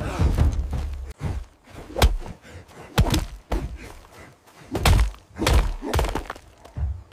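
A series of heavy thuds and thumps: a low rumble in the first second, then about six sharp separate hits over the next few seconds.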